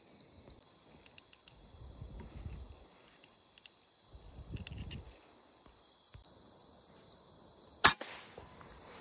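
Insects trilling steadily with a high-pitched drone. Near the end comes a single sharp, loud rifle shot.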